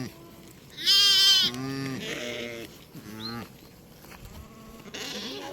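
Sheep bleating: a series of calls, the loudest a long, wavering bleat about a second in, with weaker bleats after it.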